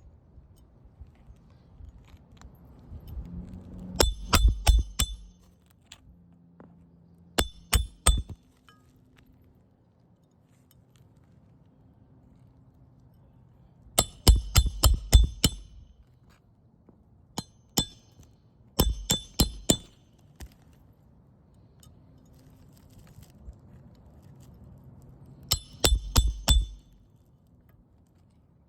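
A hammer striking a metal roof snake to drive roofing nails back in under asphalt shingle tabs. The blows come in short runs of sharp, ringing metallic strikes, six runs in all, with pauses between them.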